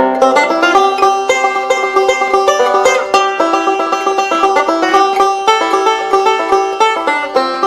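Fast banjo-led bluegrass music, rapid plucked notes in a steady run.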